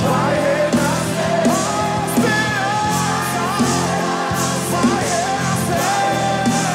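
Live worship band performing a Portuguese-language praise song: singers on the melody over acoustic guitar and keyboard, with a steady beat.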